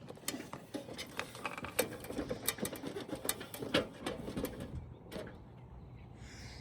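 Footsteps and scuffing on an asphalt-shingle roof: a quick run of irregular clicks and scrapes that thins out after about five seconds.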